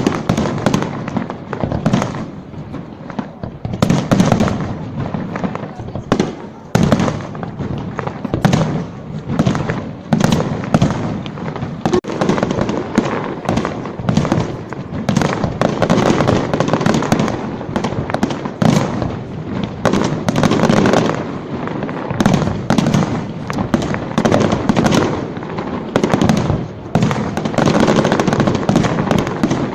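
Aerial fireworks going off in a dense, unbroken barrage: bangs and crackles overlapping several times a second.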